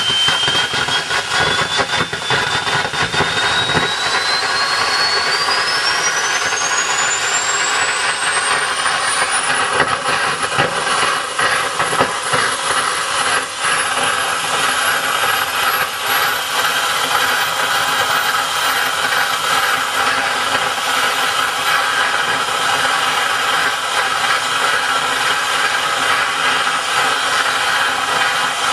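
Homemade turbojet built from a car turbocharger, with a cocktail-shaker combustion chamber, running: a steady roar of burning fuel and rushing air. Over it a high turbine whine climbs steeply for the first ten seconds or so as the shaft spins up, then levels off and rises only slowly.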